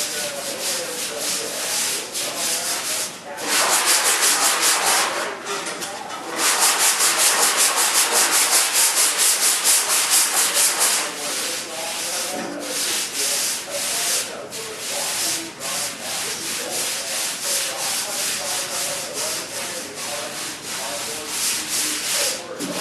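Sandpaper worked by hand in rapid back-and-forth strokes, a dry scratchy rasp. It grows louder for a stretch a few seconds in and again through the middle, then settles to lighter strokes.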